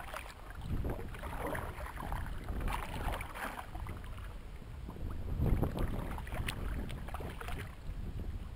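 Kayak paddle strokes, the blade splashing into the water with a surge every two seconds or so and water lapping at the hull, over a steady rumble of wind on the microphone.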